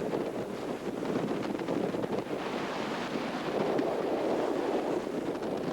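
Wind buffeting the microphone over the rush of open-ocean waves along a sailboat's hull under sail, with a wash of sea swelling about halfway through.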